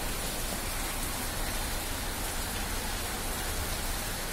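A steady, even hiss with a low rumble underneath.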